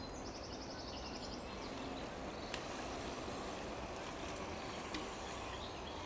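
A bird trilling briefly near the start over a steady low background rumble, with a few faint clicks later on.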